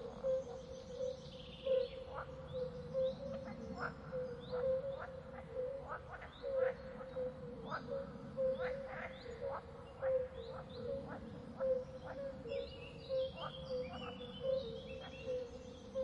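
Forest ambience of birds calling: short, sharply rising calls repeat about twice a second over a steady hum and a low rushing background. A run of quick high notes comes near the end.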